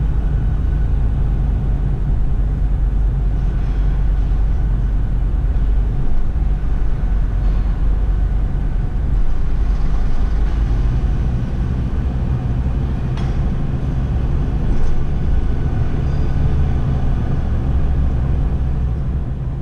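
A car driving slowly through a road tunnel, heard from inside the cabin: a steady low rumble of engine and tyre noise.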